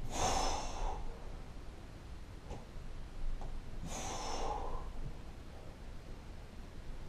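A man's two forceful exhalations of exertion, about four seconds apart, while working on a pull-up bar.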